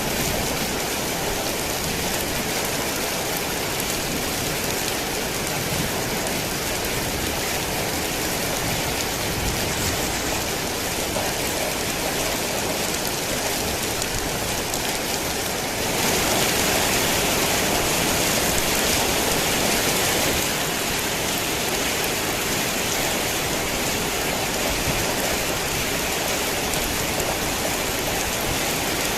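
Heavy rain falling steadily, swelling louder for about four seconds a little past the middle.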